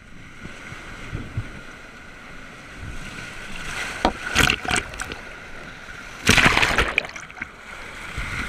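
Whitewater rushing around a paddled raft, with splashes about four seconds in and a louder one about six and a half seconds in.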